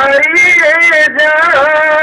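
A man singing a Bengali song, drawing out the word "hariye" in a long held melisma whose pitch bends up and down, with a brief break about a second in.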